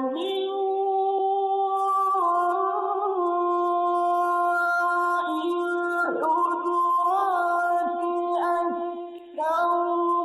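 A male Quran reciter's voice in the melodic mujawwad style, holding long drawn-out notes that bend and glide in pitch. It breaks off briefly about nine seconds in, then resumes.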